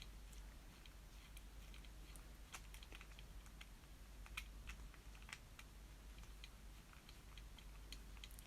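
Faint, irregular light clicks and ticks of a screwdriver and small hardware being worked while the screws holding a radio's driver power transistor to its heatsink come out.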